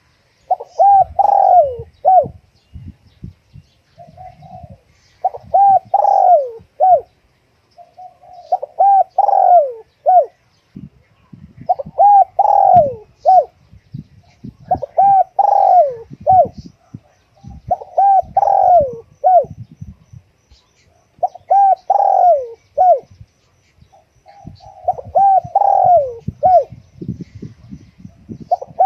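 Spotted dove cooing: the same phrase of a few low hooting notes, repeated about every three seconds.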